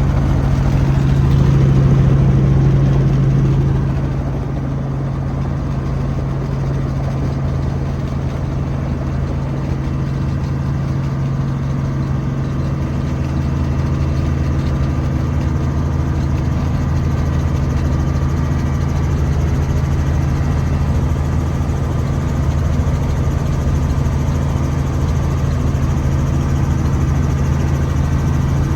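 Steady helicopter engine and rotor drone with a strong low hum, slightly louder for the first few seconds before it settles.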